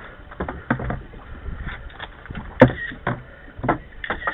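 Scattered knocks and clicks of handling on a boat over a steady hiss, with one sharp click about two and a half seconds in.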